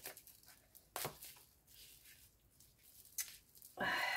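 Taped gift wrapping being handled, with a few sharp crackles, then near the end a short screech of adhesive tape being peeled off.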